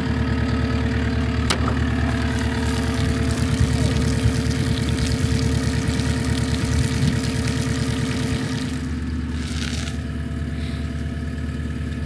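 Farm machine's engine idling steadily, with a single sharp click about a second and a half in.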